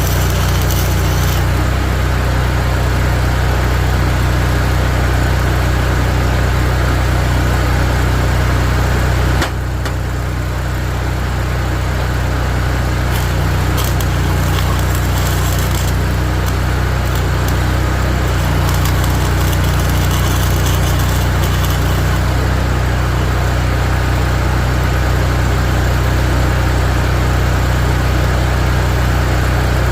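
Small engine-driven welding generator running steadily, with an even engine note. About nine and a half seconds in there is a brief dip in level that recovers over the next few seconds.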